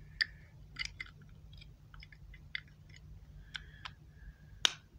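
Small hard-plastic clicks and taps as fingers work a part onto a small pink clear plastic pencil sharpener, with one louder, sharper click near the end.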